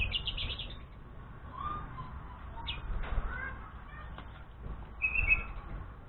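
Fischer's lovebird flying inside a wire flight cage, wings flapping, with a quick run of high chirps at the start and another short chirp near the end.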